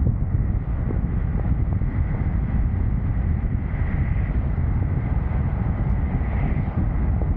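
Wind rushing over the microphone of a moving vehicle, a steady low rumble mixed with road noise, with a faint steady high whine underneath.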